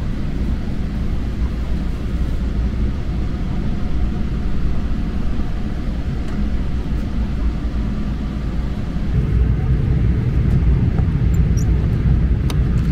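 Steady low rumble of a Boeing 777-300ER's cabin noise, heard from an economy seat, growing louder about nine seconds in. A sharp click or two near the end.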